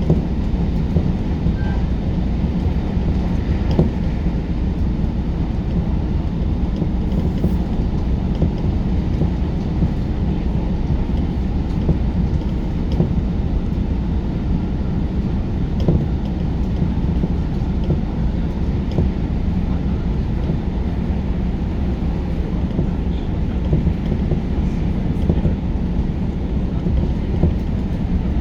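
Electric commuter train running at speed, heard from inside the carriage: a steady low rumble of wheels on the rails with a few faint clicks.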